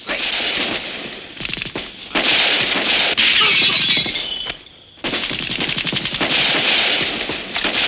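Heavy gunfire: many rifle and machine-gun shots in rapid succession, breaking off briefly a little past halfway and then starting again.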